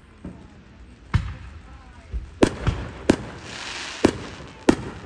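Aerial fireworks going off: a run of about six sharp bangs, with a crackling hiss after the bursts in the middle and near the end.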